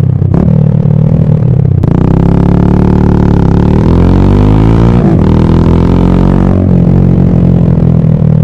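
Motorcycle engine droning steadily at highway cruising speed, with a shifting tone through the middle.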